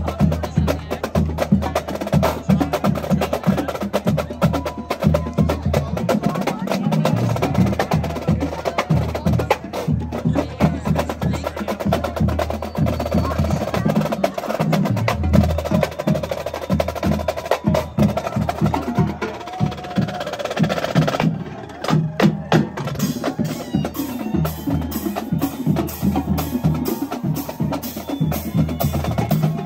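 Marching drumline of snare drums and bass drums playing a fast, driving cadence: rapid snare strokes over repeated bass-drum pulses. The drumming drops out briefly about two-thirds through, then picks straight back up.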